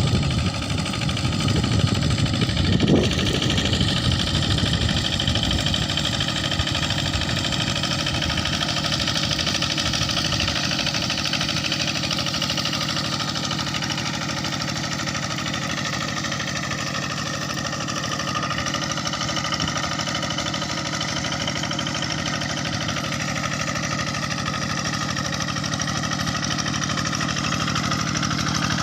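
Kubota RD85 single-cylinder diesel engine on a TL800 hand tractor running steadily as it pulls a harrow through a wet rice paddy, with a heavier low rumble in the first few seconds.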